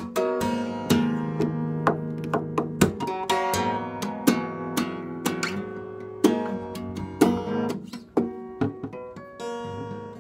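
Solo acoustic guitar played with quick strums and picked notes, each struck chord or note ringing out and fading.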